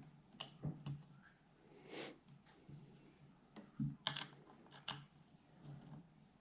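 Scattered light clicks and taps of a small Allen wrench and the metal quiver bracket as the mounting screw on a crossbow is worked and tightened, the sharpest clicks about four to five seconds in.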